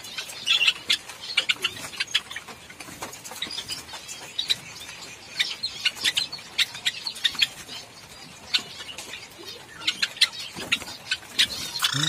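A colony of Java sparrows, mostly white ones, chirping: many short, high chirps scattered throughout, overlapping one another.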